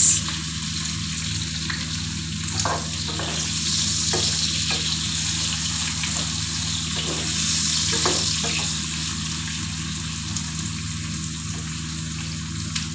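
Freshly added sliced onions sizzling in hot oil in a kadhai. They are stirred with a spatula that scrapes and knocks against the pan several times over a steady frying hiss.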